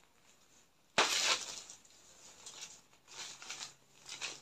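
Rustling of a sequin-embroidered georgette saree as it is unfolded and handled, in several short bursts; the loudest starts suddenly about a second in and fades quickly.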